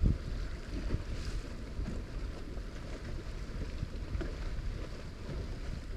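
Strong wind buffeting the microphone in a steady low rumble on an open fishing boat, with a few soft thumps.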